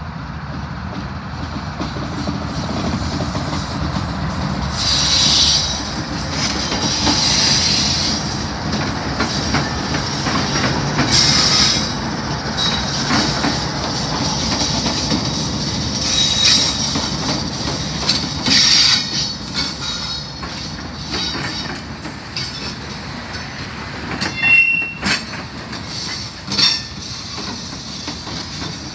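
A train rolls slowly past at close range with a steady low rumble. Its wheels squeal high-pitched again and again, and they click over the rail joints.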